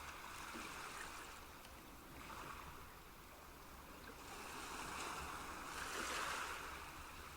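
Soft, faint water sounds from a nature-sound background, a steady wash that swells in the second half and then eases off.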